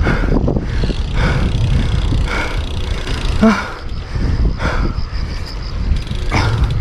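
Wind buffeting the microphone of a moving road bike, with the rider breathing hard, about one exhale a second, and a short voiced grunt about halfway through.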